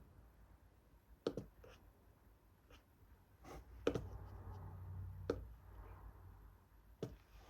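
Desk sounds while studying: a handful of light, sharp clicks and taps, spaced irregularly, with a soft low rumble in the middle.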